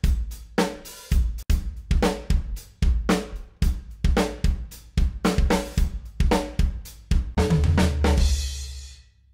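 Nu metal drum loops from a sample library auditioned in turn: an acoustic-style rock kit playing a tight kick-and-snare groove with hi-hats and cymbals. The outro loop ends on a cymbal crash ringing over a low boom that fades away just before the end.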